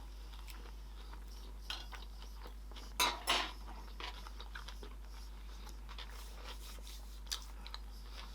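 Eating sounds at a meal of sushi: small clicks of chopsticks on a plate and soft chewing, with one louder noisy sound about three seconds in.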